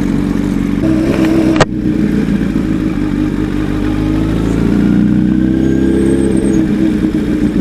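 Honda CBR1000RR Fireblade inline-four engine running at low speed as the bike filters between stopped cars. There is a sharp click about a second and a half in, and the engine note rises gently in the middle.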